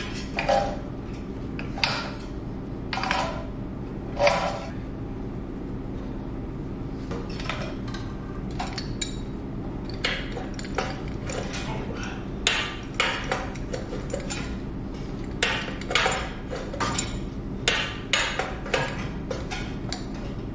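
Steel pipe wrench and threaded steel and brass pipe fittings clinking and knocking as the compressor's air-line fittings are worked loose and taken apart: sharp metal clinks at uneven intervals, thickest in the second half, over a steady low hum.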